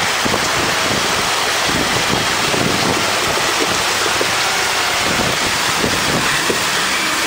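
Fast river water rushing steadily, with wind buffeting the microphone.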